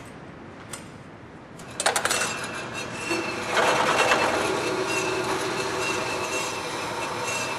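A few sharp clanks, then a horizontal metal-cutting bandsaw starts about two seconds in and runs steadily with a thin high whine, cutting through steel square tubing. It grows louder about a second and a half after starting and holds steady.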